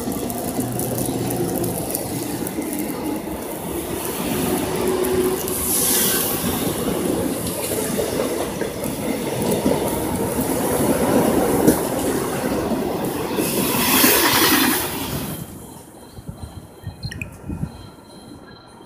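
Korail Line 1 resistor-controlled electric multiple-unit train (set 1x70) running on the rails, a continuous rumble with two short hisses about 6 and 14 seconds in. About 15 seconds in the sound falls away sharply to a much quieter stretch with faint high steady tones.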